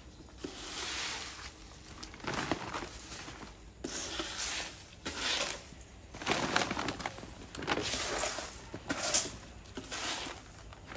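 Dry leaves and litter rustling and crackling in short, irregular bursts as they are scooped by hand into a plastic dustpan and pushed into a woven plastic sack.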